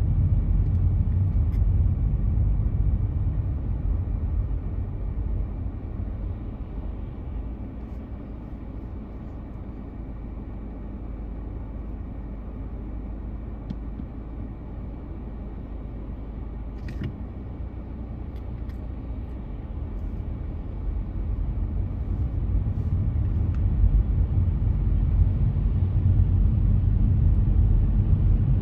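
Car driving on wet, slushy roads: a steady low rumble of engine and tyre noise that dies down through the middle and builds again toward the end. There is a short click about two-thirds of the way through.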